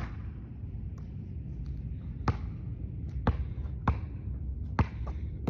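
A basketball bouncing on a hard court: one sharp bounce at the start, then four more at uneven gaps in the second half, over a steady low rumble.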